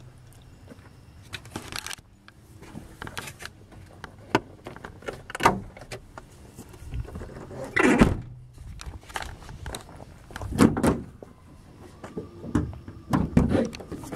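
A car's driver door being opened and shut and then its hood being unlatched and raised: a string of clunks and thumps with handling noise between them, the loudest thump about eight seconds in.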